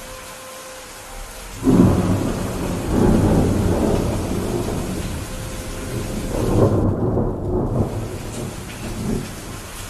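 Steady rain hissing, then a sudden clap of thunder less than two seconds in that rolls on as a long rumble, swelling again several times.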